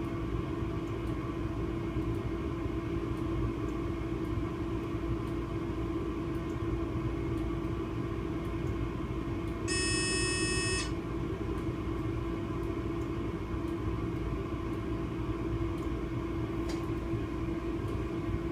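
Steady electrical hum of an Re 485 electric locomotive's cab at standstill. About ten seconds in, a single cab warning tone sounds for about a second while the automatic LZB train-protection function test runs.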